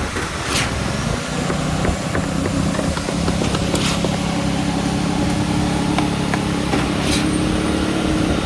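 Schwing 42 truck-mounted concrete pump running: a steady engine hum that settles about a second in, with a short sharp hiss-like stroke about every three seconds.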